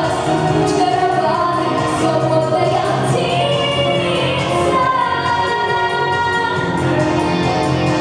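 A girl sings a pop song into a handheld microphone over a recorded backing track. Her voice stops partway through, and the backing track plays on as the song's closing bars.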